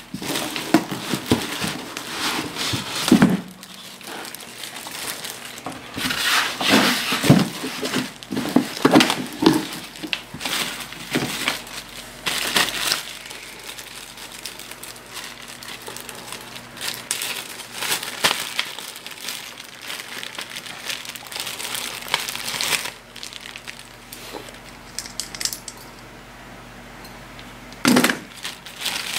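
Plastic wrap and a plastic accessory bag crinkling and rustling as the packaging of an LED grow light is handled, with foam packing inserts being shifted. Irregular bursts of rustling, with a few dull knocks, one near the end.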